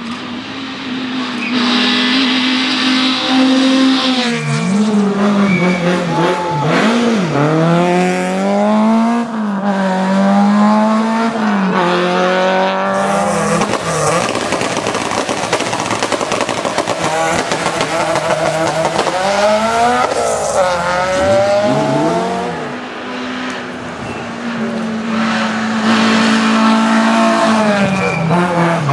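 Rally hatchback engines revving hard on a hillclimb, the note climbing in pitch and dropping back again and again through gear changes and as they brake for the hairpins.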